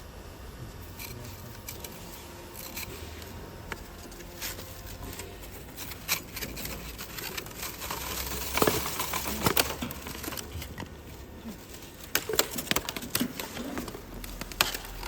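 CNC oscillating knife cutting machine at work: a steady low hum with irregular clicks and knocks that grow busier and louder about halfway through.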